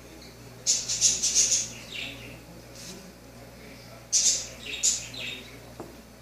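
High-pitched chirping of a small animal in two bursts of rapid chirps, about a second in and again about four seconds in, with fainter single chirps between, over a faint steady hum.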